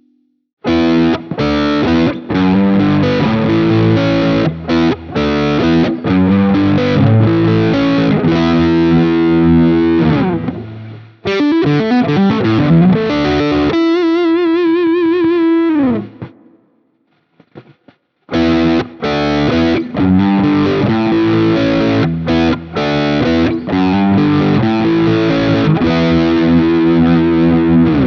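Thinline Telecaster electric guitar played through an amp-sim plugin with a distorted tone: rhythmic chords and riffs, then a held note with wide vibrato that slides down and stops about sixteen seconds in. After a pause of under two seconds, the riffing starts again.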